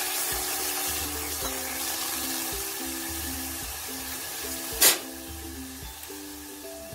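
A little water sizzling in a hot aluminium pan on a gas burner, the hiss slowly dying away, over background music with a steady beat. A single sharp click about five seconds in.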